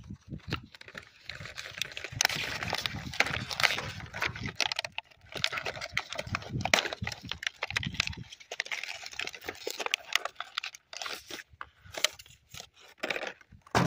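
Handling noise of a car wiper blade being fitted to its wiper arm: irregular plastic and metal clicks, scrapes and rustling, with louder knocks here and there.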